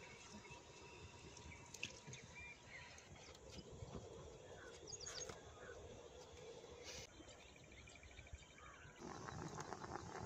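Faint rural outdoor ambience: distant bird chirps and insects, with a few soft clicks. A faint, rapid, rhythmic trill comes in near the end.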